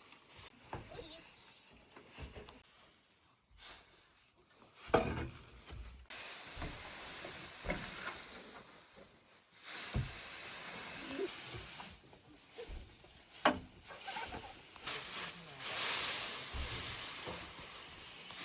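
Dry hay rustling as it is handled, in several stretches of a few seconds each, with a few light knocks in between.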